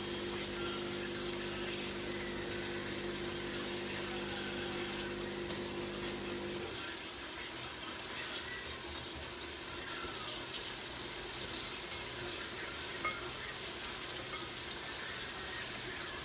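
Onions and cherry tomatoes frying in a sauté pan: a steady sizzling hiss with small scattered pops. A low hum runs underneath and cuts off about seven seconds in.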